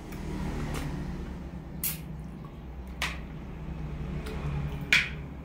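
Wet mouth sounds of someone eating soft star apple pulp off a spoon, with four short sharp clicks spread through it, the loudest near the end.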